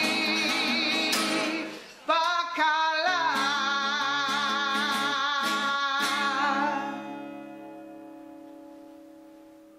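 Background music: a singing voice over plucked guitar, ending on a held final chord that fades out near the end.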